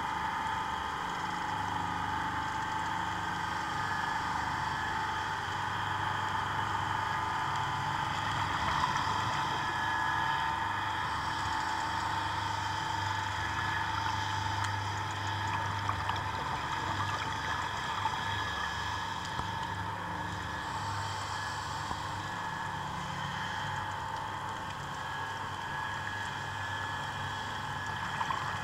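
A boat's engine running, heard underwater as a steady hum with several steady tones.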